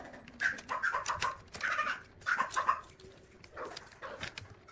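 A string of short animal calls at irregular intervals, one to three a second, with a pause about three seconds in.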